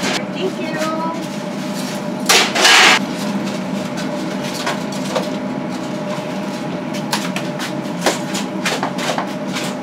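Food-truck kitchen during service: a steady machine hum under scattered clatter and knocks of utensils and pans, with a loud burst of noise lasting under a second about two and a half seconds in.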